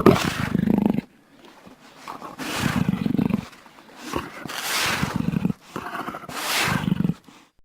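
Baryonyx dinosaur sound effect: four rough roaring calls, each about a second long, with short pauses between them. The first starts suddenly and is the loudest.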